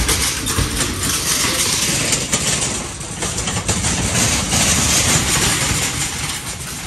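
Car driving along: a steady, loud rush of engine and road noise.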